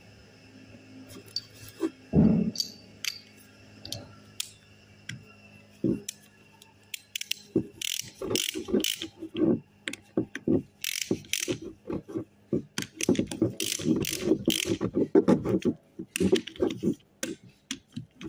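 Hand ratchet wrench clicking in quick runs as its socket turns a bolt on a steering box. A few scattered metal knocks come first, the loudest about two seconds in.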